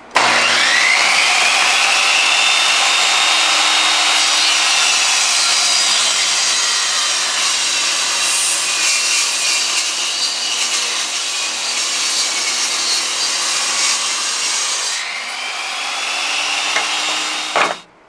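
Portable benchtop table saw ripping a 2x6 board lengthwise: the motor whines up to speed as it starts, then runs loud and steady while the blade cuts through the wood. A little after the cut the whine comes back as the blade spins free, and the sound cuts off suddenly near the end.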